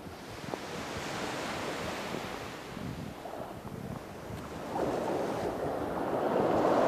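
Small sea waves washing and sloshing around a camera held right at the water's surface in the shallows, surging louder about five seconds in.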